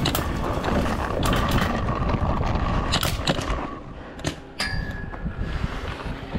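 Air-powered game guns firing in a team skirmish: a string of sharp shots and snaps, the loudest around three seconds and four and a half seconds in, over a rustling background.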